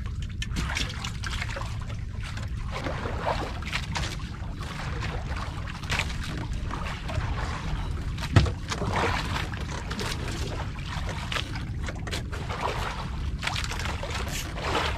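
Sea water sloshing and lapping against the hull of a small drifting outrigger boat, in uneven washes over a steady low rumble, with one short knock about eight seconds in.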